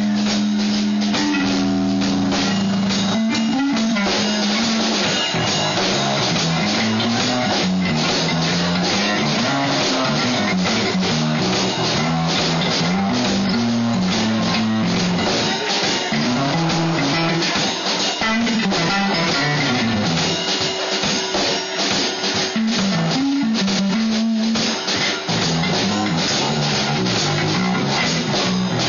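Live blues band playing a shuffle: electric guitar over a drum kit, with bass.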